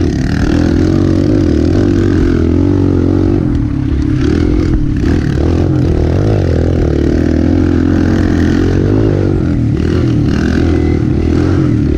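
Kawasaki KLX pit bike's single-cylinder four-stroke engine running under load close to the microphone, its pitch rising and falling again and again as the throttle is opened and eased off.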